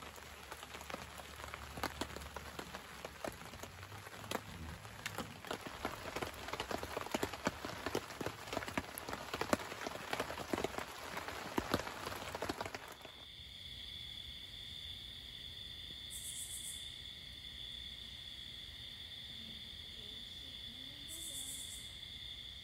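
Wood fire crackling and popping in a small wood stove, irregular snaps for about thirteen seconds. It then switches suddenly to a steady, high-pitched night-insect chorus with two brief higher buzzes.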